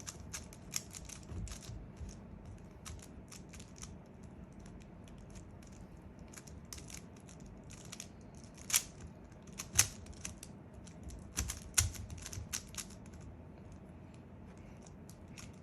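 Plastic speed cube being turned fast, its layers clicking in quick, uneven runs. A few louder clacks come about two-thirds of the way through.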